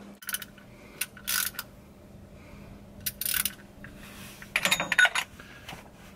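Hand ratchet and socket on a transmission-pan fitting: several short bursts of ratchet clicks and clinks of metal on metal about a second apart, one near the end ringing briefly.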